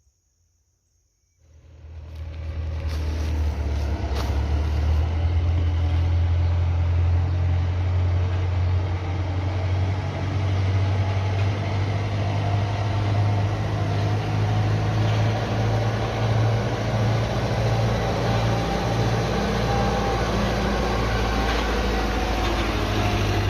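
Large farm-machine engine coming in suddenly about one and a half seconds in, building over the next two seconds, then running steadily with a deep, heavy hum.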